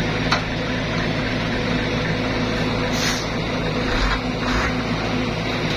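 Heavy diesel engines of a Caterpillar excavator and a Mitsubishi Fuso dump truck running steadily, with a few short hissing bursts about a third of a second, three seconds and four and a half seconds in.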